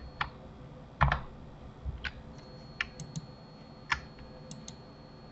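Computer keyboard keys and mouse buttons clicking in scattered single taps and short pairs, about nine in all, the loudest about a second in.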